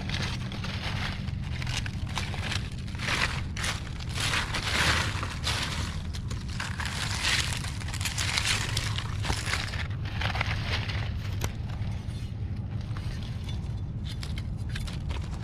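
Dry leaf litter crackling and rustling in irregular bursts as a gloved hand pushes through it to dig mushrooms out of the ground, busiest in the middle, over a steady low rumble.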